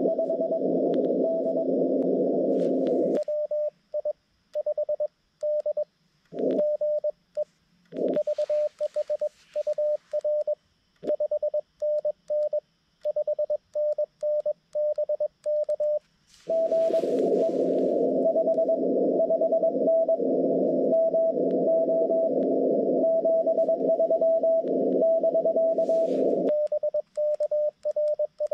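Morse code tones from a Xiegu G90 HF transceiver on CW. At the start and again from about 16 to 26 seconds, a keyed station comes through the radio's narrow filter over steady band hiss. In between and near the end, a clean on-off keyed tone with silent gaps is heard, typical of the operator's own sidetone while sending.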